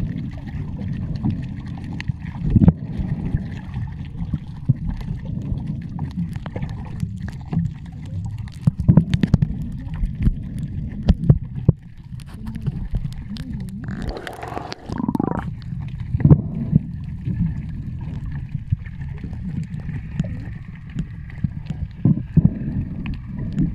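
Muffled underwater sound picked up by a submerged camera: a steady low water rumble with scattered clicks and knocks, and a louder burst of noise with a wavering tone about fourteen seconds in.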